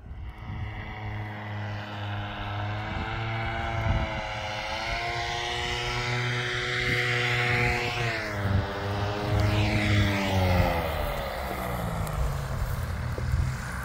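A paramotor's engine and propeller running as it flies in, growing louder, then dropping in pitch and fading over the last few seconds.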